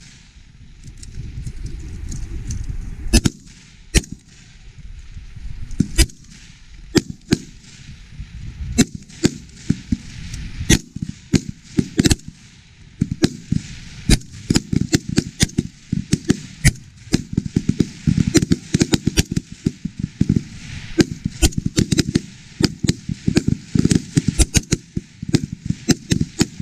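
Rifle fire from a line of shooters: single sharp cracks at irregular intervals, some close and loud, many fainter and overlapping, growing much more frequent in the second half.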